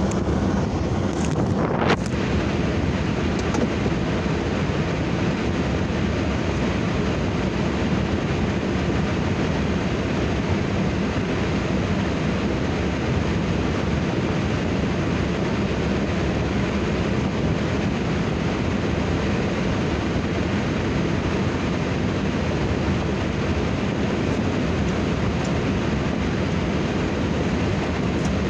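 Steady road and wind noise inside a moving car, an even rushing with no pitched engine note standing out. A brief knock sounds about two seconds in.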